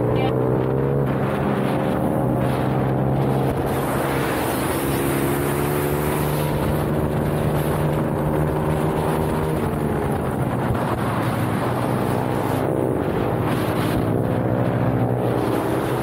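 Onboard sound of an IMR pitbike's engine at racing speed, its pitch rising and falling several times as it is revved through the corners, with wind rushing over the microphone.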